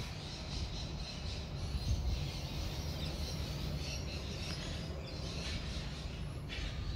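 Wind buffeting the microphone: a steady, low rumbling noise with no pauses.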